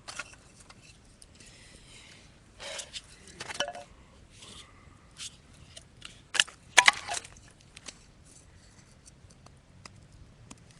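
Objects being handled: a few scattered clicks, knocks and clinks, the loudest two coming close together about six and a half seconds in, with small faint pops in between.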